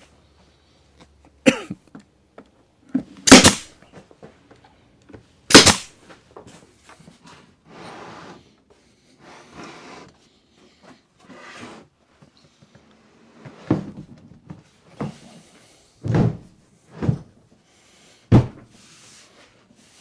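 A power stapler firing staples through plywood strips into a wooden tabletop, with two loud sharp shots a couple of seconds apart in the first six seconds. In the second half come scraping and several heavy wooden thumps as the large torsion-box top is tipped over and set down onto a workbench.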